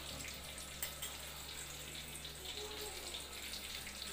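Aromatics (bay leaves, lime leaves, bruised galangal and ginger) sizzling in hot oil in a steel wok, a steady hiss with light crackles, over a steady low hum.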